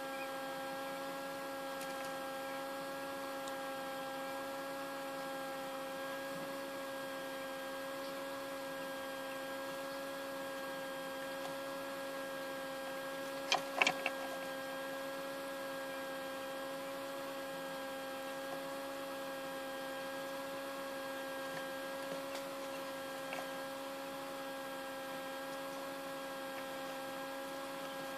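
Small egg incubator's fan motor humming steadily, a constant tone with several overtones. About halfway through, two or three sharp clicks stand out above the hum.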